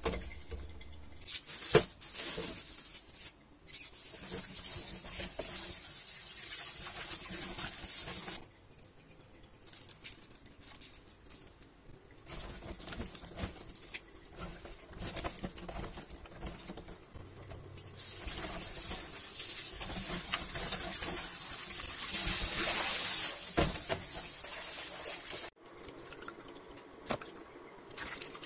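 Kitchen tap running onto raw chicken feet in a plastic colander in a stainless steel sink, in two long stretches that stop abruptly. In between, wet rubbing and small knocks as hands scrub the chicken feet.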